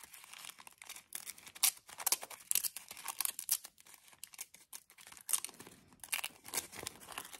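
Thin tea-bag paper being torn slowly by hand in many short, irregular, crackly rips, with some crinkling as it is handled.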